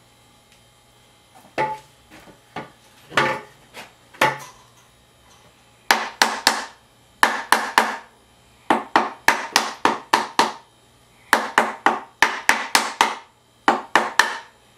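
A mallet knocking on a wooden jig, a board with a hole slipped over an oar shaft, driving it down to tighten a braided nylon rope wrap. A few single knocks come first, then runs of quick taps, three to four a second, with short pauses between runs.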